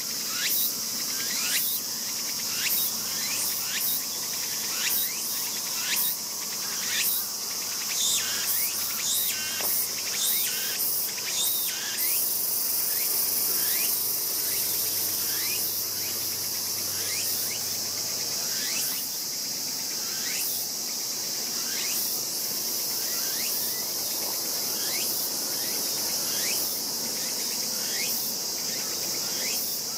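Tanuki cub giving short, high, repeated squealing cries, about one or two a second, most frequent in the first dozen seconds and fainter after. A steady chorus of chirring insects runs underneath.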